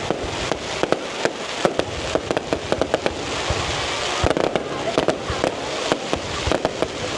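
Fireworks display going off: a rapid, irregular stream of sharp bangs and crackles with no pause.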